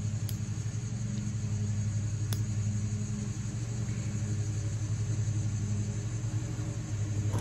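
Two sharp clicks of a nail clipper cutting a child's fingernails, about two seconds apart, over a steady low machine hum.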